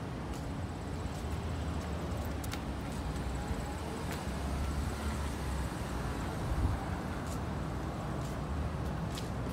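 Steady outdoor ambient noise, mostly a low rumble with a faint hiss, with a few faint clicks and a low thump about six and a half seconds in.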